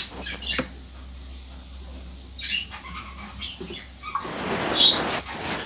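Soft rustling and small handling noises as a hamster is hand-fed from a syringe in a bin of wood-shaving bedding, with a few short high chirps. A louder rustle comes about four seconds in.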